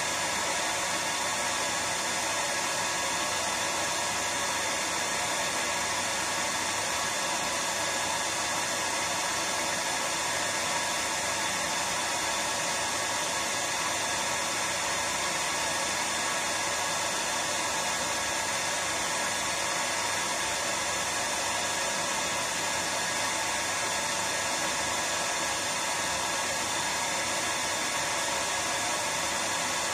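Hair dryer running steadily: an even, unchanging whooshing hiss with a faint motor hum, played as a sleep sound for a baby.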